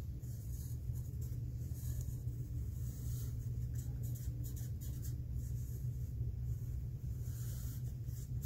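Wooden pencil drawing lines on paper: faint, irregular scratching strokes over a steady low hum.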